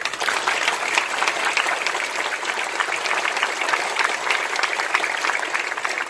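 An audience applauding: many people clapping at once, breaking out suddenly and holding steady.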